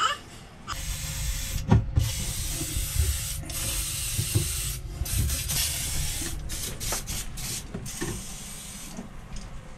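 WD-40 aerosol can spraying in several long hisses with short breaks, lubricating a stiff thru-hull valve (seacock) on a sailboat, with a couple of knocks in between.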